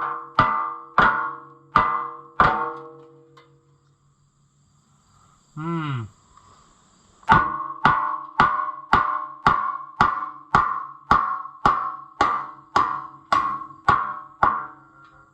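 Heavy hammer blows on the steel rear-wheel rim and its rusted clamp bolts, each strike leaving the rim ringing. Five spaced blows at the start, then after a pause a steady run of blows about two a second. In the pause there is a short sound that falls in pitch.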